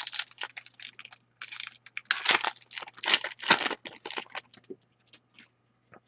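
Foil wrapper of a hockey card pack being torn open and crinkled: a rapid run of sharp crackles that thins out to a few scattered ticks in the last second or two.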